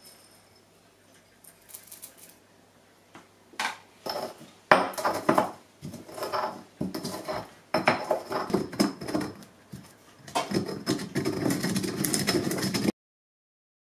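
Granite pestle knocking and grinding in a granite mortar, crushing dry cinchona bark: separate knocks and scrapes at first, then quick continuous grinding that stops abruptly near the end.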